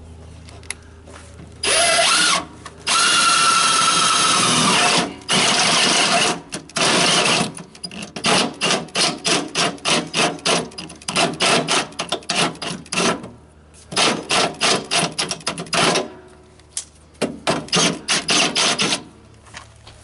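Cordless drill running in trigger bursts: a few longer runs in the first seconds, then a long series of short, rapid pulses.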